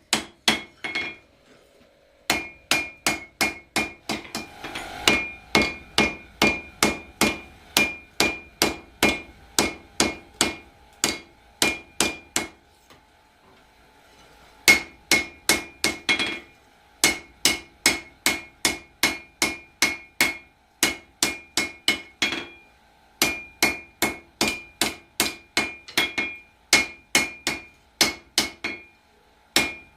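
Hand hammer forging steel on an anvil, the anvil ringing with each blow. The blows come in steady runs of about two to three a second, with short breaks near the start, in the middle and about three quarters of the way through.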